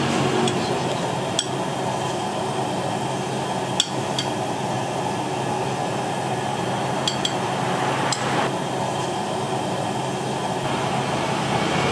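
Kitchenware clinking and knocking: a handful of separate sharp taps of utensils against dishes or glass, over a steady background noise.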